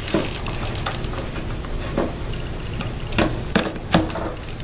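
Needle-nose pliers working a small rubber vent hose off the plastic vent nipple on a small engine's fuel tank: a few faint clicks and scrapes over a steady background hiss.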